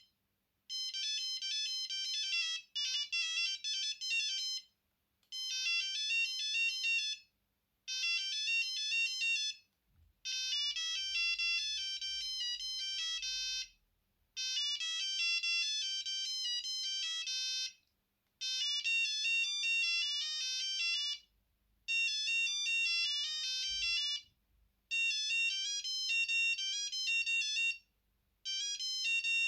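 Alcatel One Touch Easy mobile phone playing its built-in ringtones one after another through its small speaker. About nine short, high-pitched beeping melodies, each lasting a few seconds, with brief pauses between them as the list is stepped through.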